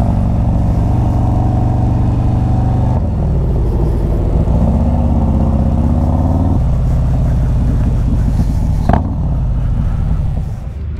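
Harley-Davidson bagger's V-twin engine running under way, its pitch climbing and then stepping down twice, about three and six and a half seconds in. A brief high chirp sounds about nine seconds in, and the engine quietens near the end.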